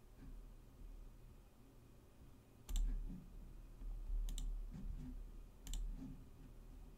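Three sharp clicks, each with a dull low thump, about a second and a half apart, over a faint low hum.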